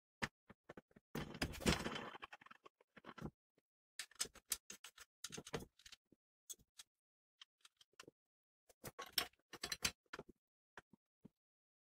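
Scattered metal clicks and clinks from a homemade steel pipe bender being handled and put together: the top pressure screw is turned and a steel handle is fitted onto it. A longer, louder scrape comes about a second in, and clusters of clicks follow at irregular intervals.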